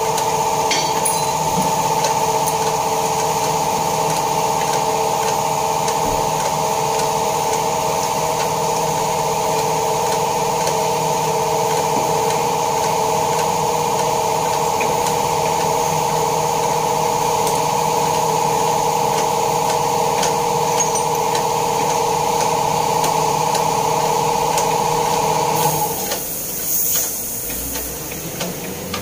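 A machine running with a steady whine made of a few held tones, which cuts off about 26 seconds in.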